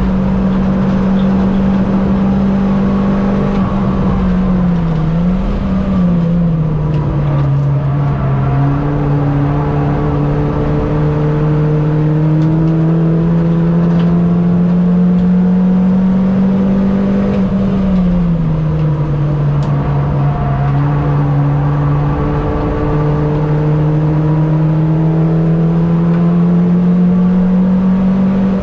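Mini Cup race car's engine running hard at racing speed, its note falling sharply twice, about four seconds in and again about eighteen seconds in, then climbing steadily as it pulls back up through the revs, over a steady rush of road and wind noise.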